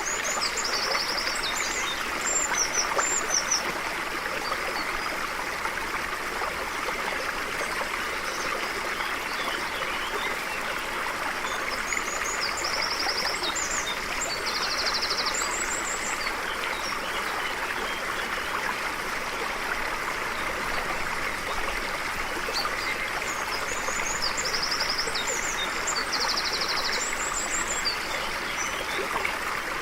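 Small stream running steadily over stones, with a songbird singing brief bursts of high chirps and trills three times, about twelve seconds apart.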